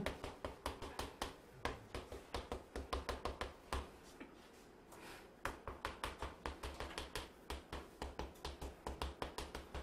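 Chalk tapping and clicking against a chalkboard as an equation is written out: quick runs of sharp taps, with a pause of about a second and a half near the middle.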